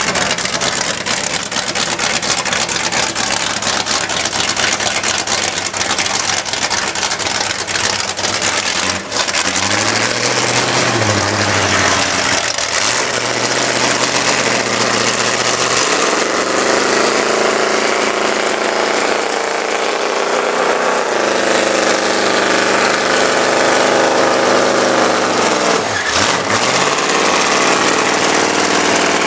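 A vehicle's engine running loudly, its pitch rising and falling several times as the engine speed changes.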